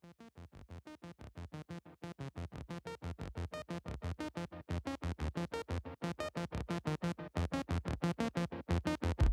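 Background electronic music: a synthesizer playing rapid, evenly repeated short notes, about eight a second, fading in over the first couple of seconds.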